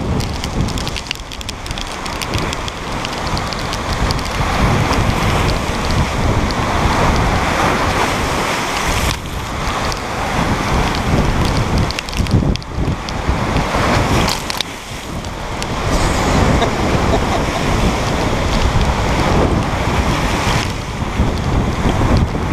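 Storm waves breaking and washing over a rock shoreline, with strong wind buffeting the microphone in gusts and a few brief lulls.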